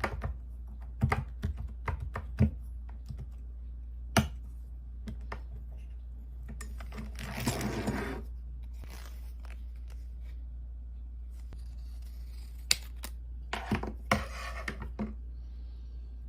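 A paint tube being worked through a hand tube squeezer: sharp clicks of the tool, and crinkling and scraping of the tube as it is flattened, with a longer scrape about seven seconds in and another around fourteen seconds.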